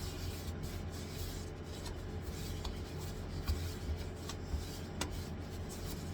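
An SSD's casing being turned by hand against a pen-style screwdriver to back out a small case screw, giving a dry rubbing and scraping with a few small clicks, the sharpest one near the end.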